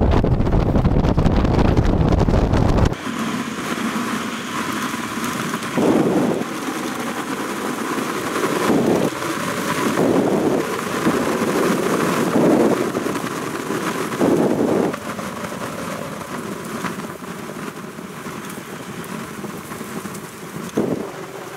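Wind buffeting a microphone mounted on the outside of a moving pickup, mixed with tyre and vehicle noise as it drives over sand and grass. A heavy rumble for the first three seconds cuts off abruptly into a thinner, steady rushing noise.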